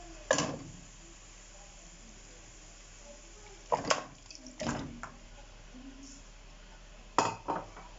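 Raw turkey pieces being put into a cooking pot: several short, wet knocks and splashes in a few separate groups.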